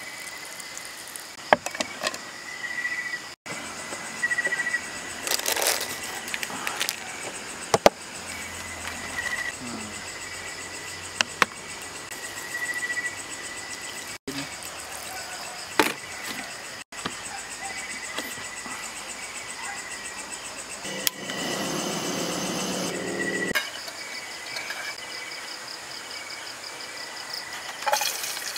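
Night insects, crickets among them, chirping steadily in high, even trills. Scattered sharp clicks and knocks of cooking utensils come over them, and a rushing noise lasts a couple of seconds about three-quarters of the way through.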